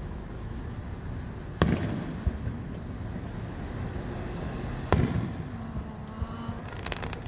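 Aerial fireworks bursting: two loud booms about three seconds apart, each trailing off in a short echo, with a few small crackles near the end, over steady low background noise.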